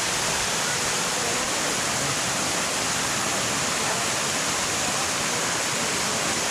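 A waterfall: a steady, unbroken rush of falling water at an even level throughout.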